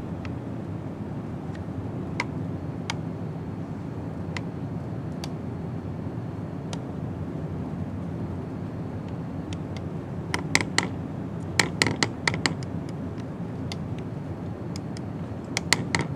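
A handheld sheet of paper crinkling in short clusters of sharp crackles, about ten seconds in and again near the end, over a steady low background rumble.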